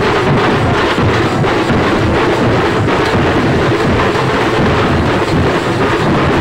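A marching drum band beating large steel-shelled drums with sticks: several drums at once, loud and continuous, blurring into a dense, unbroken roar.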